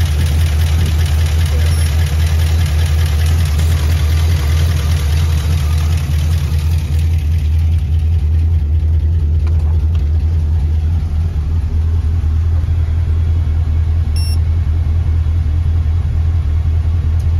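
1986 Chevrolet C10 pickup's engine idling steadily, heard close up under the open hood at first; the higher clatter and hiss fade about seven seconds in as the sound comes from farther off.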